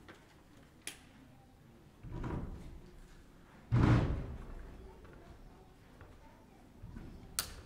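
A few low thuds and bumps, the loudest about four seconds in and fading off, with a sharp click about a second in and another near the end.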